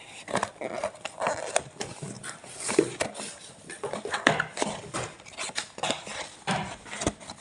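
A package being handled and opened by hand: irregular knocks, taps and rustling throughout, with a few sharper clicks.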